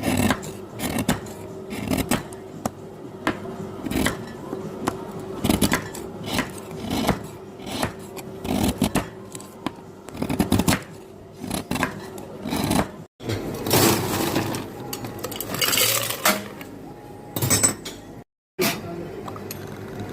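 Bar tools and glassware clinking, knocking and scraping as drinks are made: many short, irregular sharp strikes, with a busier, noisier stretch in the second half.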